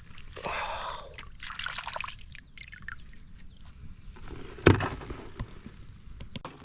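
Water splashing and trickling in short rushes, with one loud sharp knock about four and a half seconds in.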